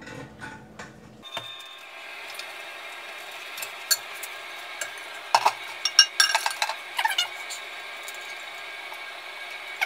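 Plastic parts of a dual-flush toilet valve assembly clicking, knocking and clinking as they are handled and fitted into a toilet tank, in scattered short taps with a cluster about halfway through, over a steady hiss.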